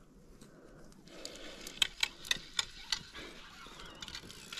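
Fly reel clicking as it is worked: a quick run of about six sharp clicks over roughly a second, over a soft hiss.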